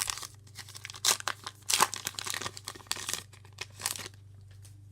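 A trading card pack's wrapper being torn open and crinkled: a quick, irregular run of rips and rustles that stops about four seconds in.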